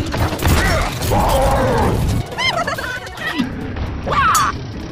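Cartoon fight sound effects layered with music: mechanical clanks and sudden impacts, with a short warbling chirp about halfway through.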